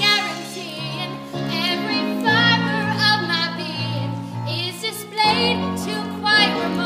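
Music: a woman singing a sustained line with wide vibrato over held accompaniment chords, which change about two seconds and five seconds in.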